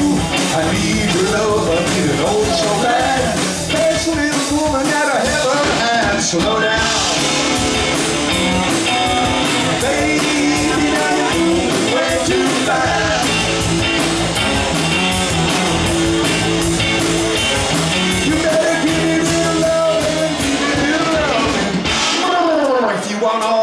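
Live rock band playing: electric guitars, electric bass and drum kit. The low end drops away briefly near the end.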